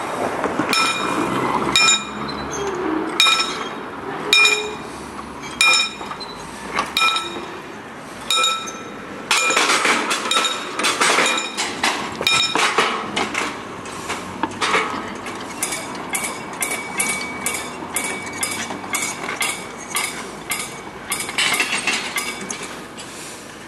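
Mechanical warning bell of a hand-cranked railway level-crossing barrier, ringing in regular single strokes while the barrier is wound down. The strokes come about once a second at first and speed up to two or three a second in the second half, with louder rattling of the mechanism around the middle.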